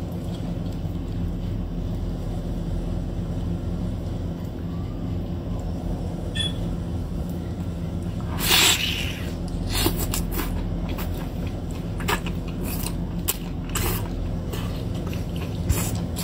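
Wet eating sounds from marinated octopus over a steady low hum: a slurp about eight seconds in, then scattered smacks and clicks as the tentacles are bitten and chewed.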